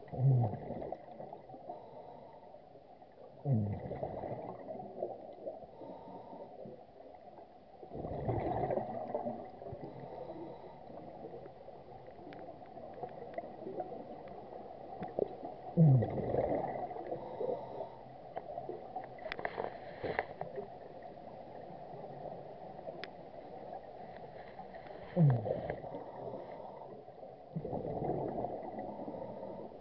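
Scuba regulator breathing heard underwater: exhaled bubbles gurgle out about six times, each burst often starting with a short low tone that drops in pitch. There is a brief brighter hiss about two-thirds of the way through, over a steady underwater background.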